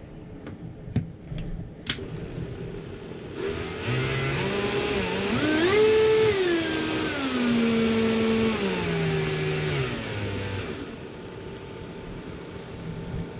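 A few clicks, then a Ryobi One+ R18RT cordless rotary tool's motor starts and runs free, its whine climbing in very definite steps to full speed and stepping back down before it stops. The stepped pitch shows a stepped speed control rather than a smooth, stepless one.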